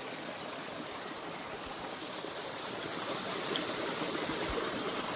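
Creek water rushing and babbling over rocks, a steady even rush that grows slightly louder near the end.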